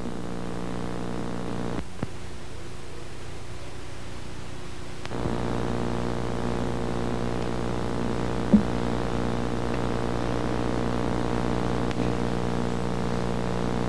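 A steady buzzing hum with many overtones. It thins out for a few seconds about 2 seconds in, returns louder about 5 seconds in, and has a single sharp click near 8.5 seconds.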